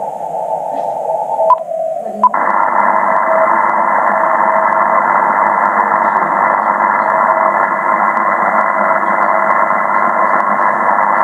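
Shortwave radio receiver giving a steady hiss of band noise, with a faint Morse code (CW) tone keying on and off. About a second and a half in there are two sharp clicks, and after the second one the hiss opens up and turns brighter as the receiver's filter is widened.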